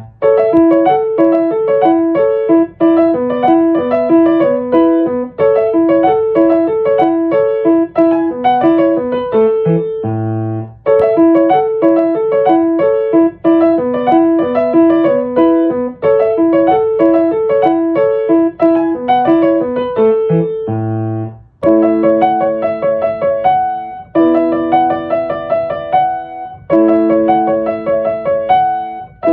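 Solo piano music: a gentle melody over a repeating pattern of broken chords, with short pauses between phrases.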